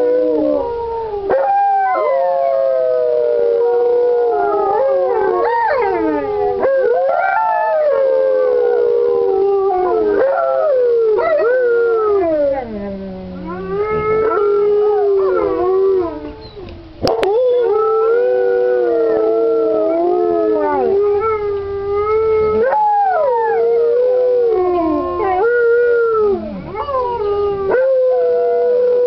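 Several Alaskan malamutes howling together in a chorus of overlapping howls that rise and fall in pitch. There are two short lulls, about twelve and sixteen seconds in.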